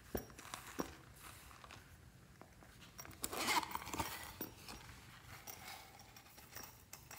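A few light taps and clicks of handling, then the zipper of a rubbery silicone pouch being pulled open in a dense, crackly run about three seconds in.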